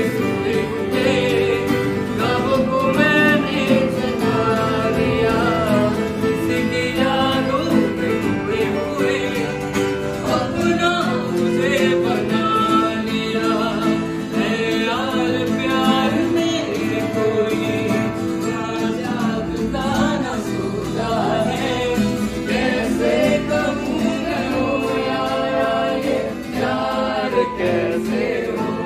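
Background music: a song with singing over guitar and other instruments, at a steady level.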